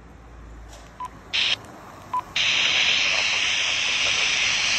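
Quansheng handheld transceiver giving two short key beeps about a second apart, then, from about two and a half seconds in, a steady rush of receiver hiss from its speaker.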